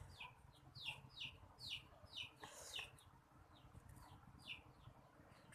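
Bird chirping faintly and repeatedly: short falling notes, about two a second.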